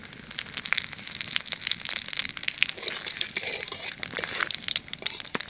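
Bay leaves and cumin seeds sizzling with a dense crackle in hot oil and ghee, stirred with a metal spatula in a kadai: whole spices being tempered.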